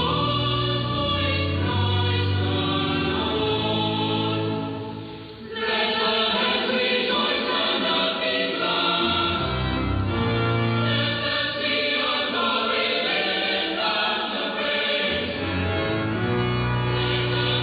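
Choir singing slow sustained liturgical music, received as an AM longwave broadcast so the treble is cut off, with a brief breath between phrases about five seconds in.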